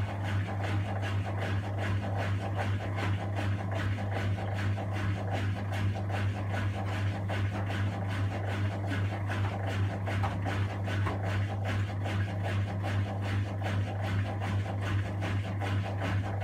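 Miele front-loading washing machine turning its drum to even out an off-balance load before spinning. A steady motor hum runs under a quick, regular swish of laundry tumbling.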